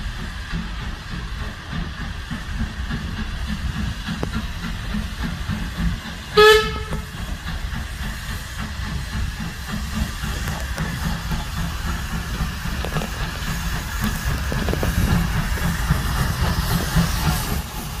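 Steam tank locomotive giving one short whistle blast about six seconds in, the loudest sound. Around it the engine rumbles, and its steam hiss grows louder as it draws close.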